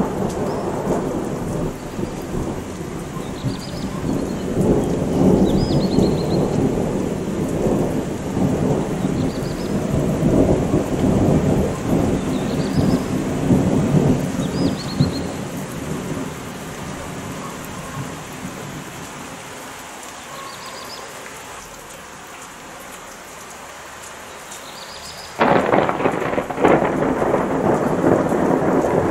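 Thunder rolling and rumbling over steady rain, fading away over about twenty seconds. About 25 seconds in, a sudden loud crack of close thunder breaks out and rumbles on: the clap from a lightning strike roughly 950 metres away.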